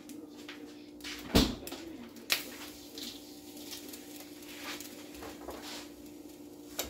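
Knocks and clicks of things being handled on a kitchen counter: one sharp loud knock about a second and a half in, another a second later, then a few lighter taps. A steady low hum runs underneath.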